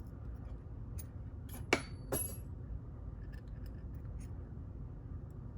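Small metal lock pins being worked out of the lock and clinking onto a hard surface: faint ticks, then two sharper clinks about half a second apart with a brief high ring.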